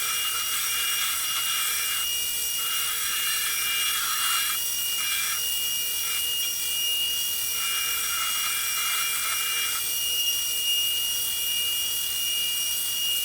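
Power sander running with a steady high whine while a steel knife blade is pressed against it and lifted off several times, the grinding noise coming and going with each pass.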